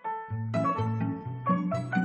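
Instrumental opening of a French pop song: bright, separate keyboard notes that ring and fade, joined about a third of a second in by a bass line and fuller backing in a steady rhythm.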